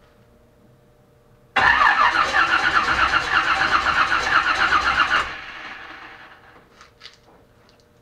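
Chevelle's engine cranking on the starter for about four seconds without catching, then the starter stops. A crank-no-start with no spark flash, which the owner puts down to a failed ignition module.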